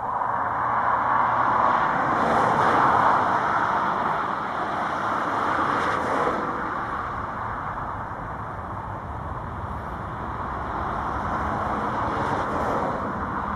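A Boeing 737-800's CFM56 jet engines running at taxi thrust as the airliner turns on the runway to line up, heard at a distance as a steady rushing noise that swells about two seconds in, eases off midway and builds again near the end.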